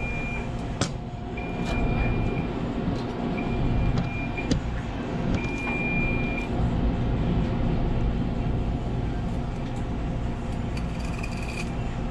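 Steady low hum of kitchen equipment. A high electronic beep repeats four times, each about a second long and about two seconds apart, and stops about halfway through. A few sharp clicks sound over the hum.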